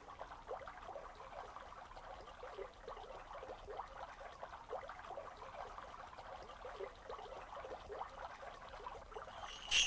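Faint bubbling and trickling of water, a patter of small quick pitched blips. Near the end a sharp strike sets off a bright, ringing bell-like tone.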